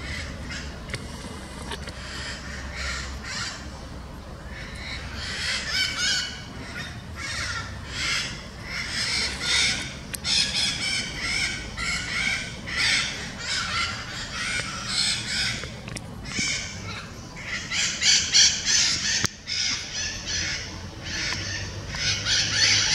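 Maritaca parrots calling: harsh, rasping screeches in quick runs. They are faint at first, then come thick and fast, loudest in the last few seconds.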